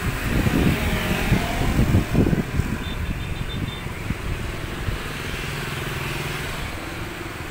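Wind buffets the microphone in gusts, then the steady low hum of motorbike engines on the road alongside takes over about five seconds in.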